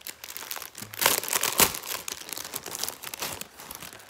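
Clear plastic packaging crinkling and crackling as it is handled, in irregular bursts with the loudest crackles about a second in.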